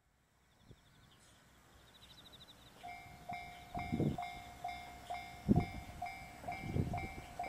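Railway level-crossing alarm starting up about three seconds in, sounding a repeated bell-like tone about twice a second, with a few low thuds among the strikes.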